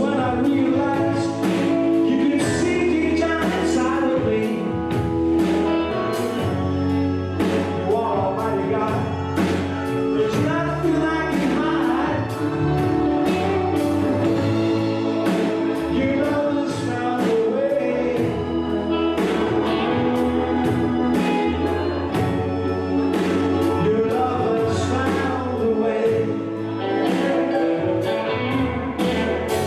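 Gospel music: singing over a band with a steady drum beat.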